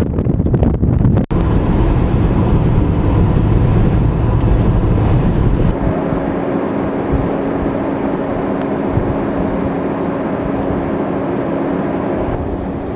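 Steady rushing road and wind noise inside a moving vehicle driving at speed. About six seconds in the rumble eases and a steady low hum comes in.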